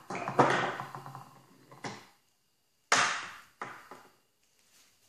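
Several hollow plastic clacks and knocks from a G-M Caddy pedal-operated golf ball dispenser as its delivery arm swings down, rolls a ball out onto the rubber tee and snaps back upright against the ABS box. The loudest knocks come just at the start and about three seconds in, each trailing off briefly, with fainter taps after.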